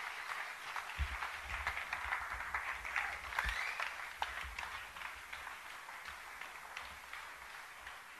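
Audience applauding, a dense patter of many hands clapping that fades out gradually toward the end.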